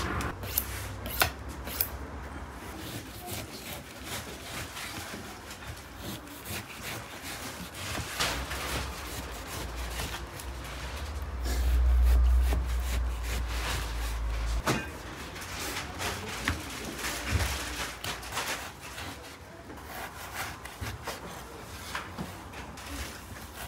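Knife slicing and chopping beef on a wooden cutting board: irregular taps of the blade on the wood between soft rubbing strokes through the meat. A low rumble swells for about three seconds near the middle.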